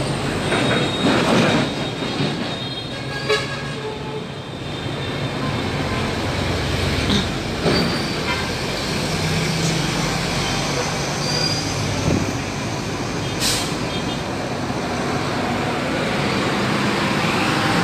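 Steady street traffic noise from motorbikes passing on a busy road, with a few sharp clicks.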